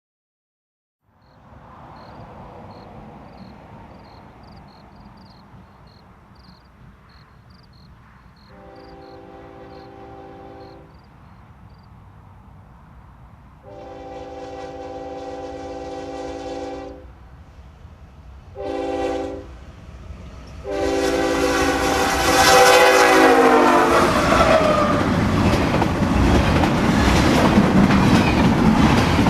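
Train horn sounding the grade-crossing signal: two long blasts, a short one and a long one, the last falling in pitch as the train reaches the crossing. The train then rolls past loudly with wheels clacking over the rail joints.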